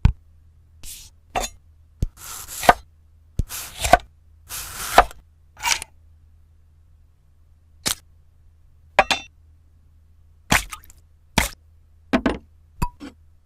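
A run of separate sharp clicks and knocks mixed with short scraping and rustling bursts, about a dozen in all, with a pause of a couple of seconds about midway.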